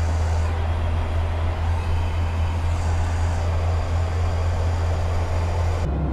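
Airliner cabin noise in flight: a steady, loud low drone of the engines with a rushing airflow hiss over it. Near the end the hiss cuts out abruptly and the low drone carries on.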